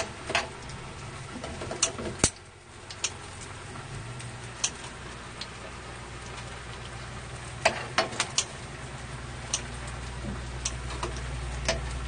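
Scattered sharp clicks and clinks of cooking utensils being handled, about a dozen spread through, over a steady low hum that gets a little louder from about four seconds in.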